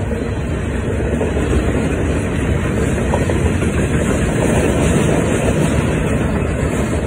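Intermodal freight train of double-stacked container well cars rolling past at a crossing: a steady, loud rumble of steel wheels on the rails.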